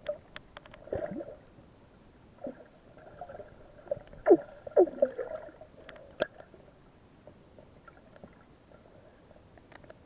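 Water gurgling and sloshing with bubbly, quickly falling blips, in scattered bursts with the loudest cluster about four to five seconds in.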